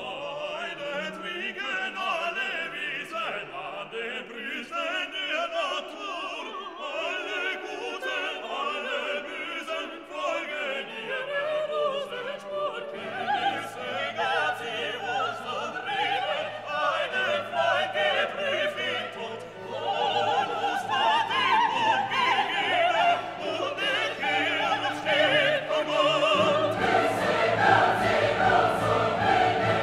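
Background music: classical opera-style singing with vibrato over instruments, a deeper part coming in near the end as it grows louder.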